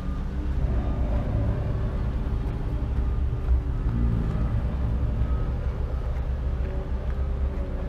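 Diesel engine of a bulldozer or similar heavy earthmoving machine running steadily: a deep, constant rumble with fainter engine tones above it.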